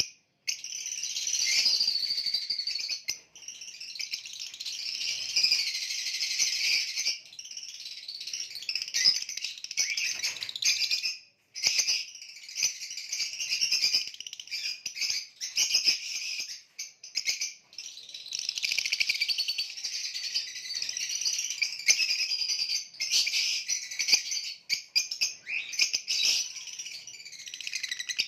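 Green opaline parrot chattering and chirping almost without a break in a fast, busy warble, pausing briefly a few times.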